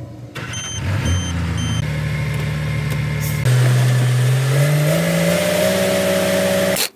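Ignition key turned on a Lonking (Longgong) 855N wheel loader: three short electronic beeps, then the diesel engine starts and runs. After about three and a half seconds the engine note is louder and steps up in pitch as it revs, then cuts off abruptly near the end.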